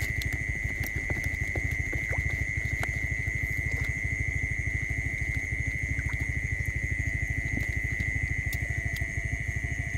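Hands splashing and feeling about in a shallow, muddy puddle of rice-field water, with scattered small splashes. Underneath, a steady high-pitched whine and a fast, low throbbing run on without a break.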